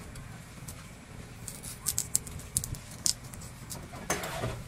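Julienne peeler shaving a raw carrot into strips: a run of short, crisp scrapes, then a longer rasping stroke near the end.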